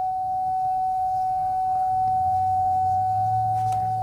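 A steady, pure electronic tone held at one unchanging pitch, with a faint low hum joining about two seconds in.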